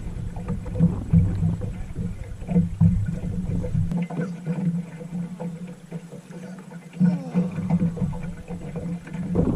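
Wind rumbling on the microphone, with scattered light clicks and knocks. The deepest part of the rumble drops away for about three seconds in the middle.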